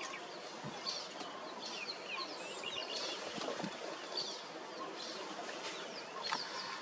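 Many short, high, falling chirps and twitters, repeated throughout over a steady outdoor hiss, with a few faint low thuds.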